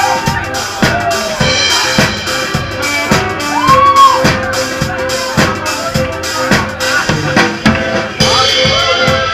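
A live band plays a fast southern-Italian tarantella/pizzica tune. A drum kit drives a quick steady beat of kick, snare and rimshots, while a diatonic button accordion and a saxophone carry the melody, with a long held note and several pitch bends.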